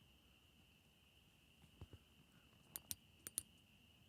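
ThruNite Saber flashlight's tail-cap button clicked a few times, in quick press-and-release pairs, switching output modes up to high. A faint steady high-pitched hum runs behind it.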